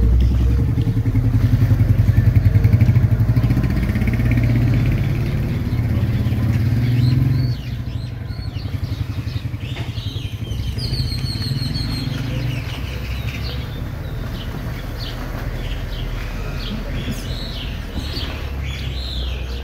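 Motorcycle engine running steadily, louder for the first seven seconds or so and then lower. Birds chirp over it in the second half.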